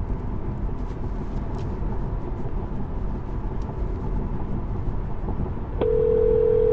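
Steady tyre and road noise inside the cabin of a Tesla Model 3 Performance cruising at about 60 mph. Near the end, a steady phone ringback tone starts over the car's speakers as a hands-free call dials out.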